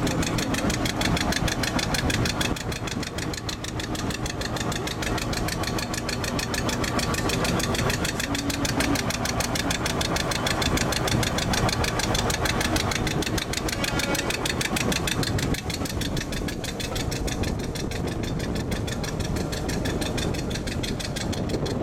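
Diesel locomotive engine running under load as it hauls the train, heard close up from the carriage behind, with a fast, even beat throughout.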